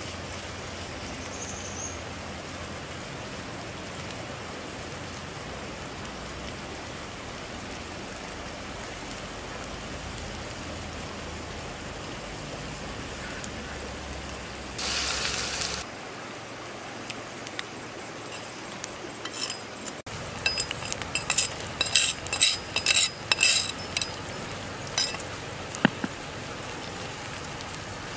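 Worms frying in a pan over a wood fire with a steady hiss, louder for about a second halfway through. From about two-thirds in, a metal blade scrapes and clinks against the pan as chopped chili is stirred in with the worms.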